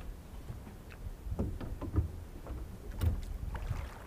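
Small rowboat being rowed: irregular thumps and knocks from the oars working in their oarlocks, roughly one a second.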